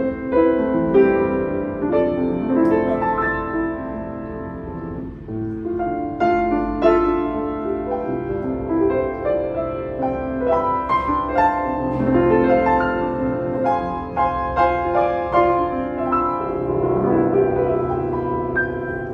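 Yamaha YUA upright piano being played, a flowing passage of chords and melody notes that ring on. The piano is freshly rebuilt, with German Abel hammer heads, a new set of bass strings and new tuning pins.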